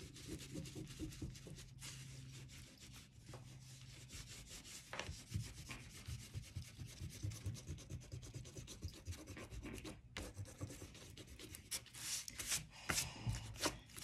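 A handheld eraser rubbed back and forth on drawing paper in faint, quick, uneven strokes.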